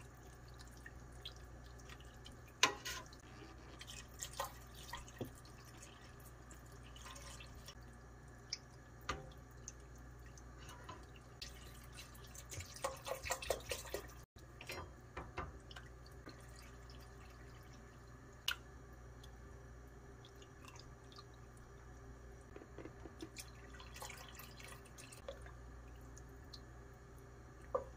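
Wooden spatula stirring beef and seaweed in a stainless steel pot, with scattered light knocks and scrapes against the pot, and water splashing in from a plastic bottle about halfway through. A steady low hum runs underneath.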